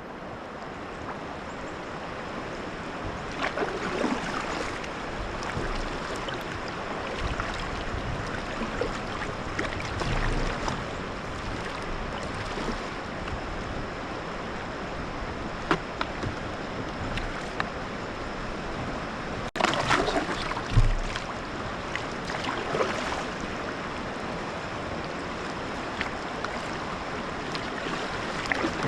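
Rushing river water around a kayak: a steady wash with occasional splashes.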